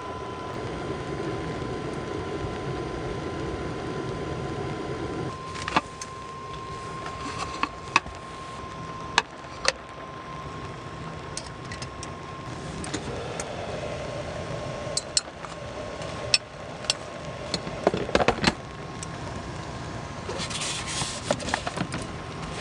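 Small objects being handled and set down: a series of separate sharp clicks and knocks, clustered about two thirds of the way in, over a faint steady tone.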